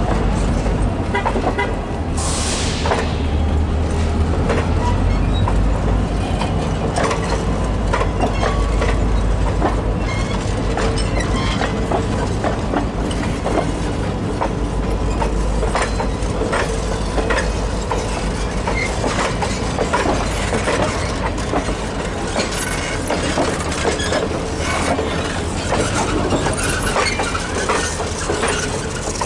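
Passenger coaches of an excursion train rolling slowly past, their steel wheels clicking and knocking over the rail joints over a steady low rumble. A brief hiss comes about two seconds in.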